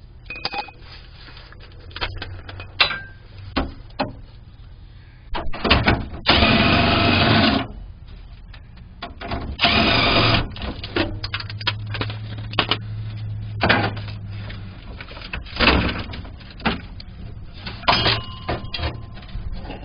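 An impact wrench runs in two bursts, about a second and a half and then about a second, backing out the two remaining fuel-tank strap bolts. Short clinks and knocks of tools and metal come in between.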